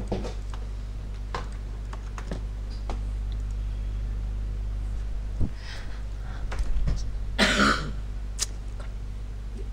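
A steady low hum with scattered light clicks, and a person's short cough about seven and a half seconds in.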